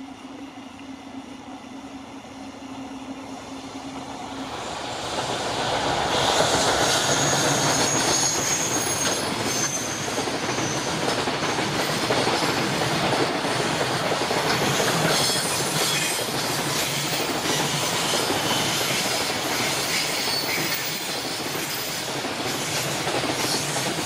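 Container freight train hauled by an EF210 electric locomotive passing close by on a curve: the level builds as it approaches, then it is loud from about five seconds in as the wagons run past, wheels clattering over the rail joints with high-pitched flange squeal from the curve.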